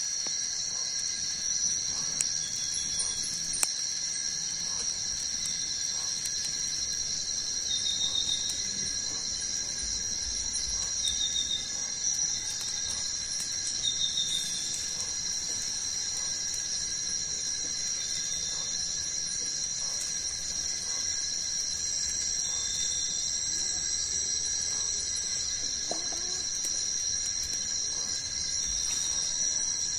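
Rainforest insects such as cicadas and crickets droning in several steady high-pitched tones, with short chirps repeating every few seconds. A few faint crackles come from the campfire.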